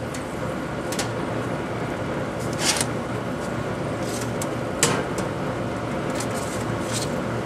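Metal smoker lid opened and a slab of pork ribs pulled off the grate onto a tray: a few sharp clanks and one longer scrape, over a steady background hum and hiss.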